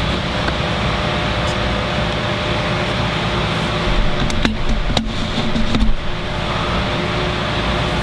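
Steady fan-like background noise with a faint hum, and a couple of light clicks about four and a half and five seconds in as an Allen wrench tightens a screw in the crossbow's crank assembly.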